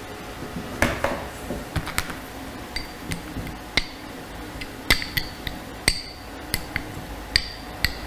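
Metal spoon clinking and scraping against a small glass bowl while mashing viburnum berries in water, in irregular sharp taps about two a second.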